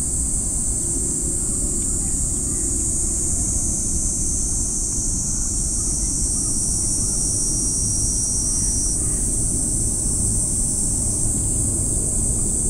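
Outdoor ambience: a steady low wind rumble on the microphone, with a continuous high-pitched hiss above it.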